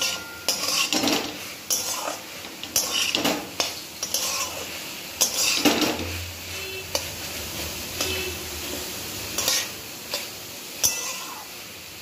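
A metal spatula scrapes and stirs a banana-flower, potato and chickpea mixture around a kadai in repeated, irregular strokes about once a second. A steady faint sizzle of frying in oil runs underneath.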